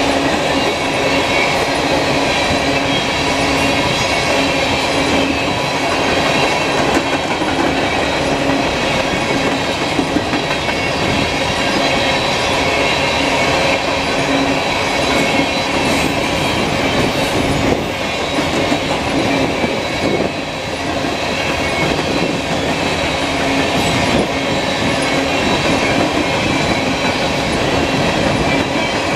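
Steel open-top aggregate hopper cars of a freight train rolling past close by: a steady rumble of steel wheels on the rails, with a few steady ringing tones over it and occasional clicks.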